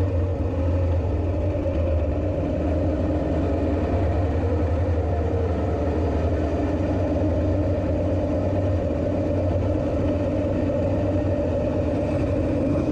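Motorcycle engine running at a steady pitch.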